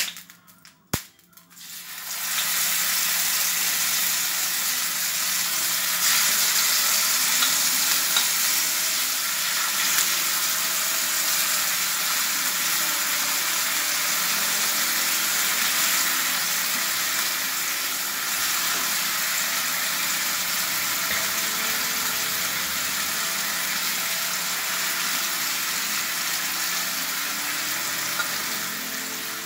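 Masala-coated sardines frying in oil on a hot dosa griddle: a steady sizzle that starts about two seconds in, as the fish go onto the hot oil, and keeps going.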